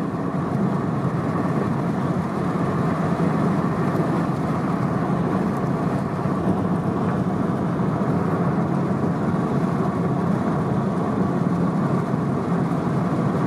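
Car driving at speed, heard from inside the cabin: a steady mix of engine and tyre noise on the road.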